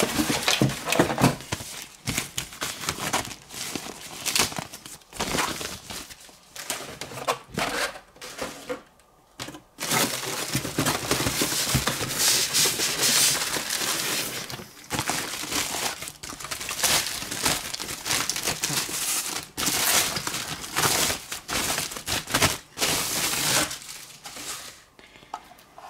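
Plastic packaging being crinkled and rustled while parts are unwrapped, in irregular handling bursts with a longer unbroken stretch of crinkling around the middle.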